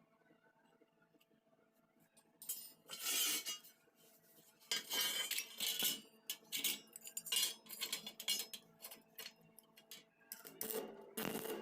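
Metal clinking and scraping in irregular short bursts, over a faint steady hum.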